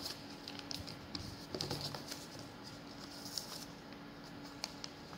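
Origami paper being handled and folded on a table: soft scattered rustles and small clicks of paper and fingers, over a faint steady hum.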